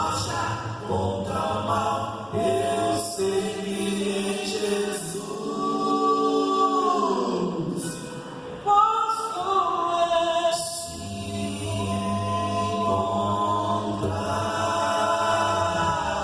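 Vocal quartet singing a Portuguese gospel song a cappella in close harmony, with long held chords and a brief pause about eight seconds in.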